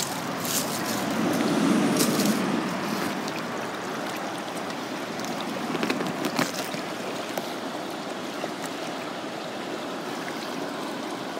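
Creek water running steadily close by, with a few short clicks.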